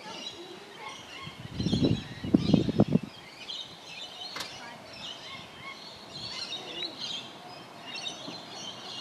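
Small birds chirping and twittering, with a brief cluster of low thumps about two seconds in.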